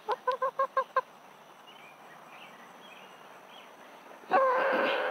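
Rooster calling: a quick run of about six short clucks in the first second, then one long, loud squawk starting near the end.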